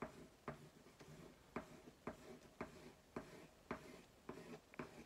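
Soft, regular ticking, about two ticks a second, in a quiet small room.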